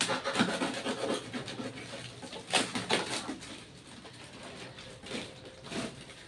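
Packing cardboard rustling and scraping as it is handled and pulled about inside a box, in a series of irregular scrapes, the loudest about two and a half and three seconds in.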